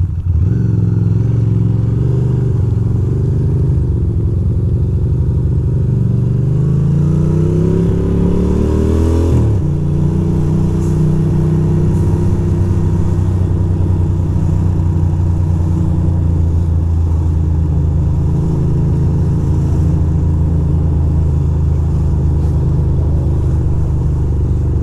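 2006 Ducati Monster 620's air-cooled L-twin engine running under the rider. About six seconds in its pitch climbs steadily for a few seconds, drops back abruptly, then holds steady at a lower pitch.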